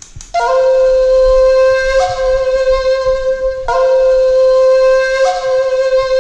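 A horn sounding two long, steady, loud blasts of about three seconds each, the second following straight after the first.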